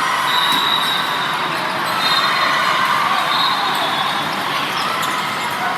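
Steady crowd hubbub in a gym during a match, with scattered knocks of balls hitting the court.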